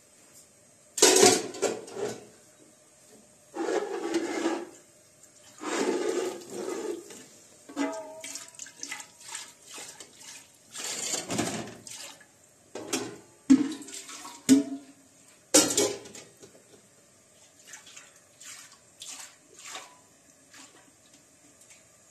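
Water sloshing and pouring as a large aluminium pot is rinsed and emptied into a basin, in several separate splashes. Metal clanks of the pot ring out a few times around the middle, and lighter knocks follow near the end.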